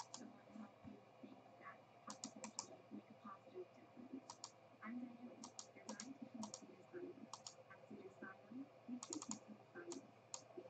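Faint computer mouse and keyboard clicks, coming irregularly and often in quick pairs or triples.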